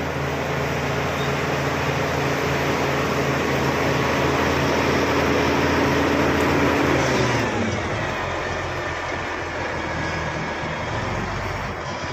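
Bulldozer's diesel engine running hard at steady high revs, then throttling down about seven seconds in, its pitch falling to a lower, quieter run.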